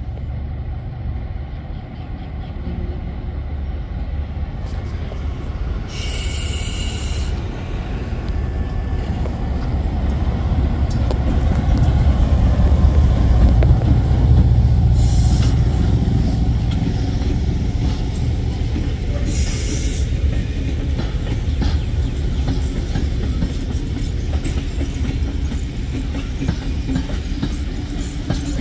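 NSW 49 class diesel locomotive 4916 hauling a train of passenger carriages past. The engine rumble builds to its loudest about halfway through as the locomotive goes by, then gives way to the steady run of carriage wheels over the rails. Three brief high wheel squeals come on the curve.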